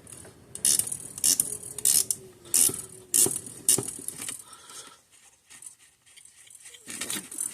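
Ratcheting driver clicking in a run of about six strokes roughly half a second apart, driving a screw in slowly, then going quieter.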